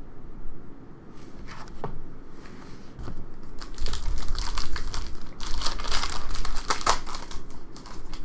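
Trading card pack wrapper being torn open and crinkled, in irregular bursts that are busiest and loudest in the second half.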